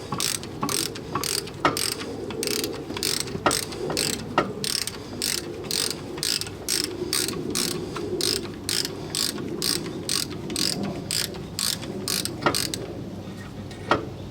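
Hand ratchet wrench clicking in a steady run, about four clicks a second, as bolts are run in during a brake pad change. The clicking stops near the end, with a few sharper metal knocks along the way.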